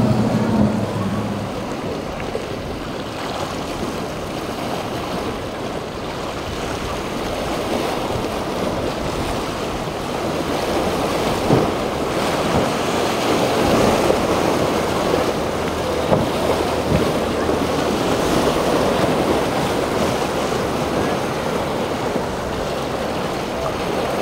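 Waves washing and breaking at a rough inlet, with wind on the microphone; the wash swells louder in the middle.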